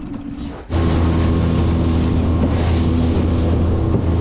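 Outboard motor of a small aluminium tinny running under way, a loud steady drone, with wind on the microphone and water noise. Under a second in it jumps suddenly from a quieter steady hum to full loudness.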